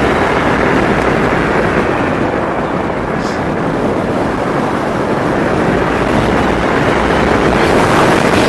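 Steady loud wind rush over the microphone of a rider at speed on the E-Mobo DuoTork dual-motor electric kick scooter.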